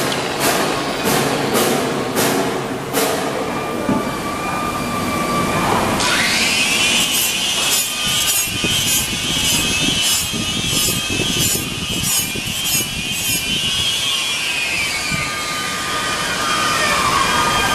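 Handheld electric drum sander with an abrasive wheel grinding a stainless-steel kitchen sink, with repeated rasping strokes against the metal. About six seconds in the motor's whine rises, runs steady, and falls away near the end.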